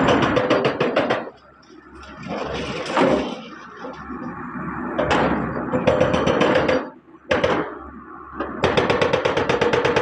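Hyundai 140W-7 wheeled excavator working, heard as bursts of rapid, even knocking, roughly ten blows a second, that stop and start several times with short pauses between them.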